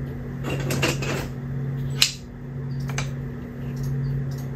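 KEVA wooden planks being handled and placed on a plank build: a short scraping rustle of wood on wood about half a second in, then a sharp click of a plank set down about two seconds in and a lighter click a second later, over a steady low hum.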